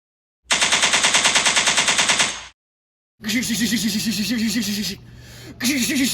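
Rapid machine-gun-style rattling in three bursts, the last starting near the end. A voice's pitch wobbles underneath the later bursts: someone imitating machine-gun fire with their mouth.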